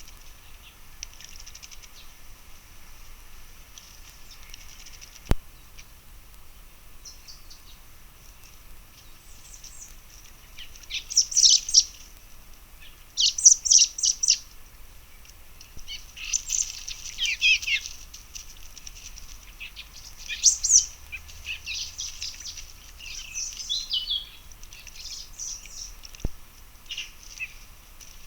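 Small woodland birds chirping and calling in short, quick bursts, sparse at first and then coming thick and loud from about ten seconds in. Two sharp clicks stand out, one early and one near the end.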